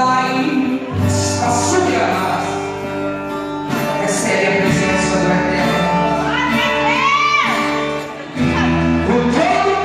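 Live gospel worship music: a band with sustained low notes under a singer holding long, gliding notes.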